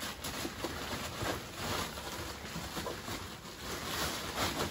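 A woven plastic feed sack rustling and crinkling, with a cardboard box scraping, as the box is pushed down into the sack: irregular handling noise with no steady rhythm.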